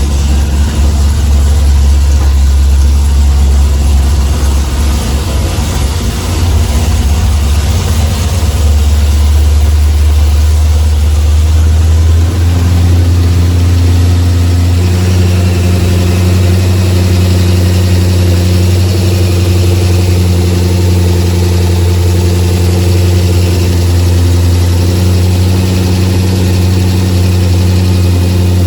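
Cammed 6.0-litre V8 of a Pontiac G8 GT idling through long-tube headers and an aftermarket exhaust. The idle note changes about 8 seconds in and again about 12 seconds in, then holds steady.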